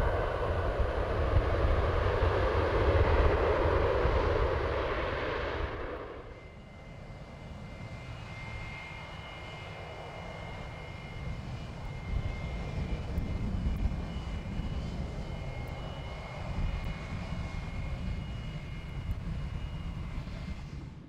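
Jet airliner engines making a loud, even roar that cuts off abruptly about six seconds in. After that, a quieter steady rumble with a thin, high, steady whine.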